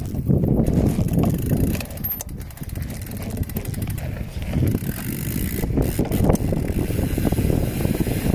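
Bicycle rolling along a trail, its rear freewheel ticking in quick runs of clicks while coasting, over heavy wind rumble on the microphone.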